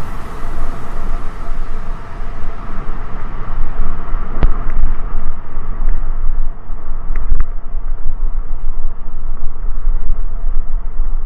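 Wind buffeting an action camera's microphone over the rumble and rattle of a mountain bike riding fast down a gravel dirt road. A sharp knock comes about four and a half seconds in, and two more a little after seven seconds.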